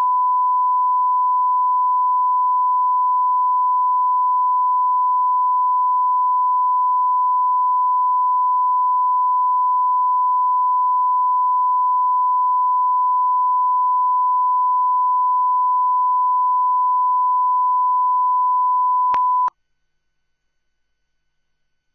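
A steady 1 kHz reference tone, the line-up tone laid at the head of a broadcast tape. Near the end it breaks with a couple of clicks and cuts off suddenly.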